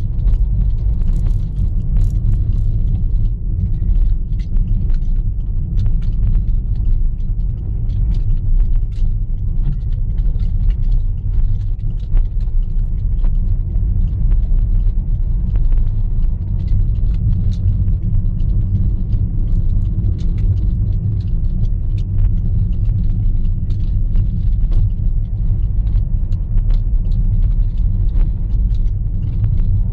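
Steady low rumble of a car driving on a rough road, engine and tyre noise heard from inside the cabin, with light clicks and rattles throughout.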